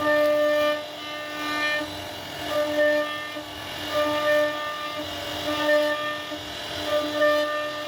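CNC router spindle whining at a steady high pitch while carving wood, the sound swelling and easing about once a second as the bit bites into the cut.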